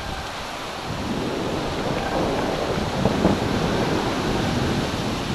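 Wind buffeting an action camera's microphone during a fast mountain-bike descent, mixed with the rumble and rattle of the bike rolling over a dirt trail. A few sharper knocks come about three seconds in.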